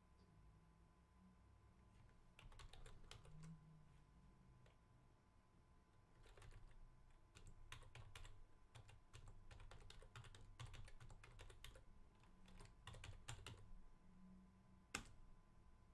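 Faint computer keyboard typing, keystrokes coming in short runs with pauses between, and one sharper click near the end.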